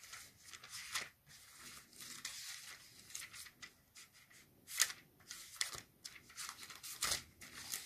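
Book pages rustling as they are leafed through, looking up a Bible passage: soft, irregular paper strokes with a couple of sharper page turns near the end.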